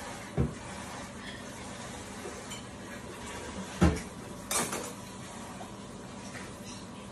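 A utensil knocking and clinking against a frying pan: one knock about half a second in, a louder one near four seconds, then a short run of clinks right after, over a steady faint hiss.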